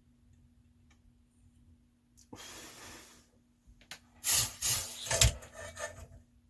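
Hands working at a model-building bench: a soft hiss lasting about a second, then a cluster of rustles, clicks and knocks as parts and wiring are handled.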